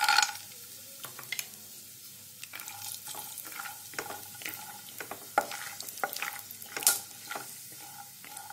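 Raw peanuts frying in hot oil in a nonstick kadhai: a steady sizzle, with frequent scrapes and clicks as a spatula stirs the nuts against the pan. A louder clatter right at the start as the peanuts drop into the oil.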